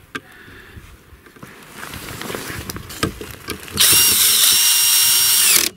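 Cordless screwdriver driving a screw into a snow-shovel grip: a few handling clicks and knocks, then the motor runs for about two seconds, its pitch dipping briefly under load, and stops suddenly.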